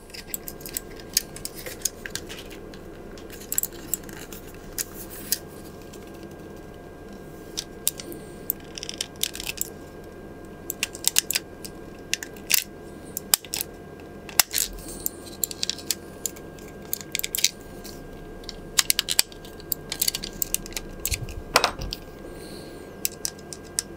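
Small clicks and taps of the plastic shell and internal parts of a ROCCAT Kain 202 mouse being handled and pried apart with small tools, scattered sharp ticks over a faint steady hum, with one louder knock a little before the end.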